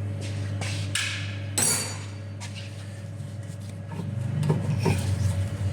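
Metal parts scraping and clinking as a rear brake caliper is worked free of its mounting. There is one sharp, ringing metallic clink about a second and a half in, and smaller knocks near the end.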